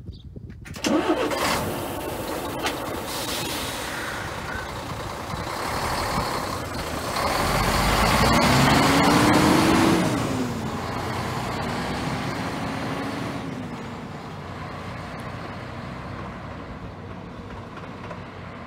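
MAN TGA 460 truck with its race-truck transporter trailer pulling away and driving past: a sharp air-brake hiss about a second in, then engine and tyre noise that builds to its loudest as the rig passes, about eight to ten seconds in, with the engine note rising and then dropping, before fading as it drives off.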